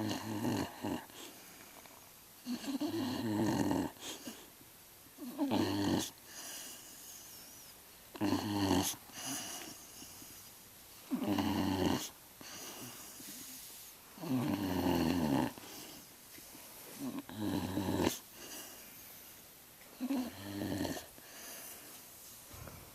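A sleeping pet snoring and grunting, one loud rough snore about every three seconds with quieter breaths in between.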